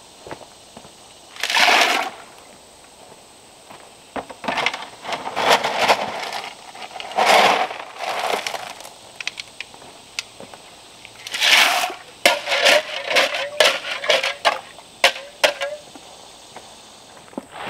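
A shovel scooping dirt out of a wheelbarrow, with several short scraping bursts of blade on tub and soil, then a quick run of sharp knocks and scrapes near the end.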